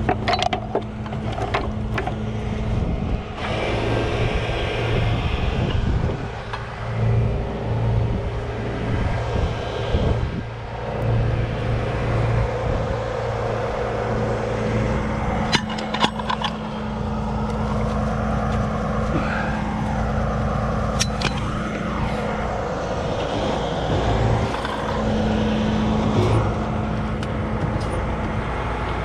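Heavy wrecker's diesel engine running steadily, with sharp metallic clanks of the snatch block, hook and chain being handled a few times.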